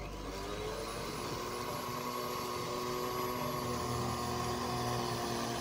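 Homemade lawn mower driven by an angle grinder motor, running under load as it cuts grass, with a steady high-pitched whine. The pitch rises slightly in the first second, then holds steady.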